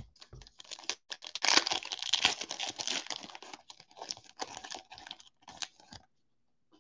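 A foil trading-card pack being torn open and its wrapper crinkled and rustled. It is a dense run of crackling that starts about a second in and stops about a second before the end.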